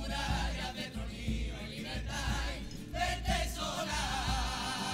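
A Cádiz carnival comparsa of young voices singing in harmony, with guitars and a drum beating underneath. Near the end the voices settle into a long held note with vibrato.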